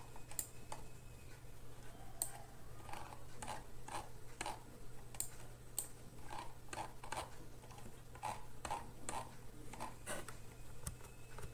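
Faint computer mouse clicks, irregular at about one or two a second, as the document is scrolled down, over a low steady hum.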